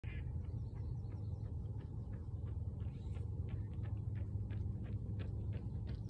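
Young deer buck chewing close by, a quick, irregular clicking of its teeth, about three to four clicks a second, over a steady low hum.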